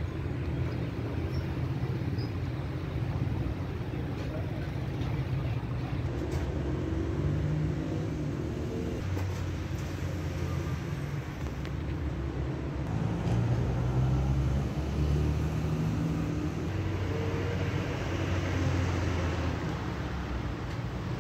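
Low, steady rumble of motor traffic with a shifting engine hum, and voices in the background.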